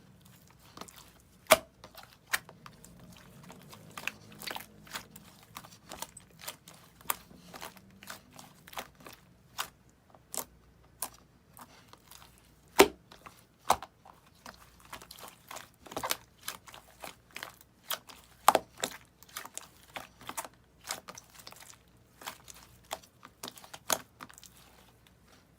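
Slime being squished and worked by hand, giving off irregular sharp crackles and pops a second or so apart, with a few louder snaps among them.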